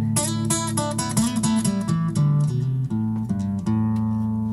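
Solo acoustic guitar: a quick run of picked notes and chord changes, then a chord struck about three and a half seconds in and left to ring, slowly fading.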